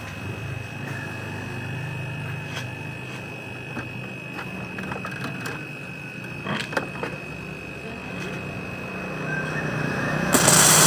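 Compressor running with a steady hum and a steady high whine, with a few light clicks. About ten seconds in, a loud rush of compressed gas starts blasting out of the freezer's evaporator pipe: it is being flushed of the oil that got into it.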